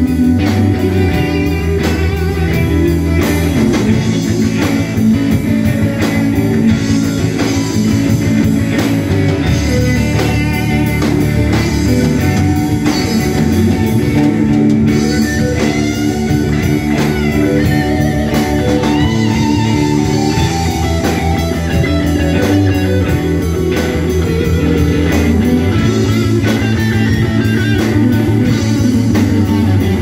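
Live rock band playing an instrumental passage: electric guitars, electric bass and drum kit, with a lead guitar line of bent, wavering notes through the middle.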